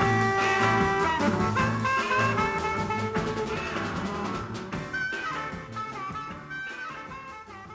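Instrumental band music with no singing, fading out steadily.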